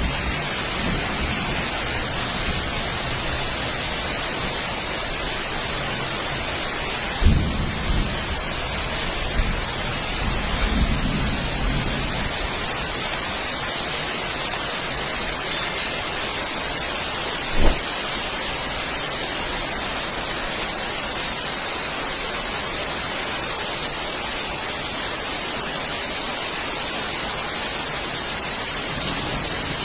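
Steady rainfall, an even hiss. Two brief low thumps come at about a quarter and just past halfway through, with a low rumble between them.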